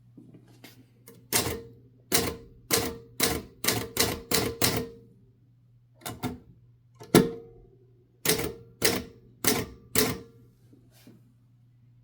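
1969 Adler J5 manual typewriter being typed: keys struck one at a time in short, unhurried runs with pauses between them, each a sharp clack, one a little past the middle louder than the rest.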